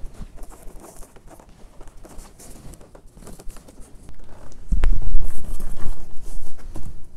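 Tulle and fabric rustling as they are handled during hand-sewing, faint with small clicks at first. About two thirds of the way in it turns into louder rubbing and bumping.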